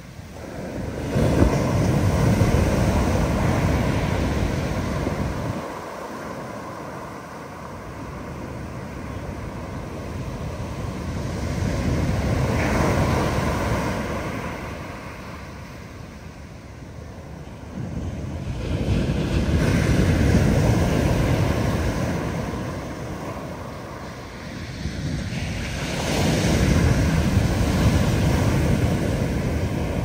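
Big ocean surf breaking on the beach: four loud swells of crashing water, each building and fading over several seconds, about seven seconds apart.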